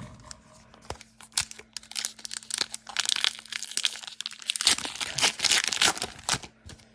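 Foil trading-card pack wrapper crinkling and being torn open by hand: a dense run of sharp crackles, busiest in the second half. A faint steady hum runs underneath.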